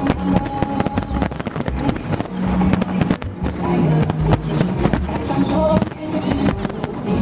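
A fireworks display with rapid bangs and crackling bursts, layered over background music.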